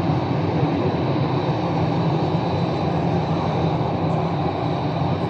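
Jet airliner's engines running on the runway as it rolls for takeoff, heard from across the airfield: a steady low rumble with a thin high whine on top.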